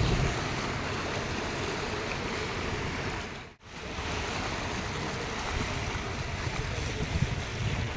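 Sea surf washing over a rocky shore, a steady rushing wash, with wind buffeting the microphone in low rumbles. The sound cuts out for a moment about three and a half seconds in.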